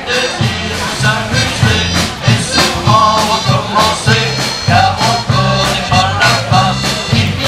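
Band music with drums and a bass line at a steady beat, a melody line playing on top.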